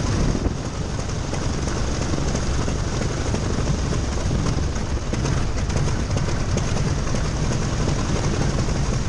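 Grumman HU-16C Albatross's Wright R-1820 nine-cylinder radial engine running steadily after start, a loud even rumble with its propeller turning.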